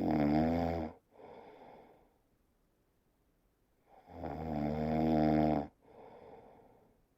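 Snoring in slow cycles: a loud pitched snore followed by a softer breath out, then the same again about four seconds later.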